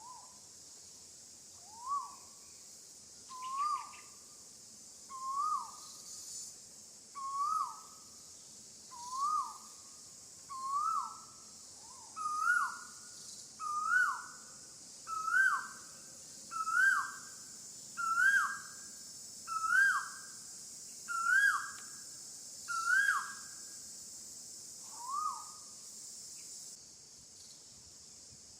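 A series of about fifteen short calls, one every second and a half, each sliding up in pitch and then dropping. The calls get higher and louder as the series goes on, with one last call after a pause. A steady high insect hum runs underneath.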